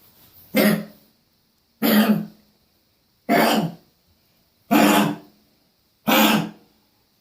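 A pet coughing five times, about a second and a half apart, each cough short and harsh; the owner takes it for an attempt to bring up something stuck in her throat.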